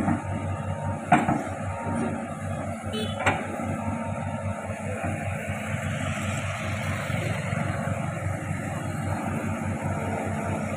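Hitachi hydraulic excavator's diesel engine running steadily while it works, with three sharp knocks in the first few seconds, the loudest about a second in.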